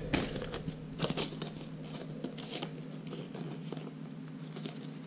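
Cardboard box packaging and a fabric lanyard with a metal clip being handled: scattered light clicks, taps and crinkles, a few sharper ones in the first second or so.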